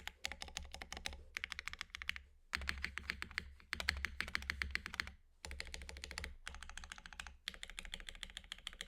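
Frog mini mechanical keyboard with Gateron Snow Rabbit linear switches on an aluminum plate, typed on fast. Keystrokes come in rapid runs with brief pauses between.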